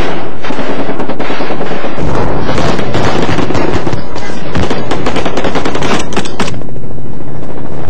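Rapid automatic gunfire: dense bursts of rifle and machine-gun shots in quick succession, thinning out near the end.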